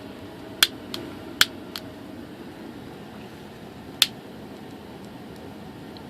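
Five light, sharp clicks and taps of a soldered plug connector and cable being handled on a workbench, four within the first two seconds and one about four seconds in, over a faint steady hiss.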